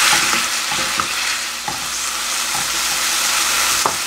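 Julienned burdock root sizzling in soy sauce and syrup in a nonstick frying pan as the sauce cooks down to almost nothing, with a spatula stirring and scraping the pan now and then. The sharpest scrape comes near the end.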